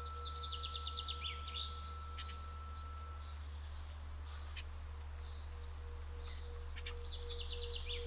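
A songbird sings a fast trill of about a dozen notes falling in pitch, twice, once near the start and again near the end. Beneath it a Tibetan singing bowl rings on: one tone fades out about three seconds in while a lower tone wavers slowly and swells toward the end, over a steady low hum.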